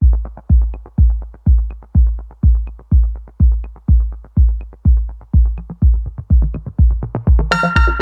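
Electronic dance music: a steady kick drum about two beats a second with a deep bass, joined near the end by a bright synthesizer layer.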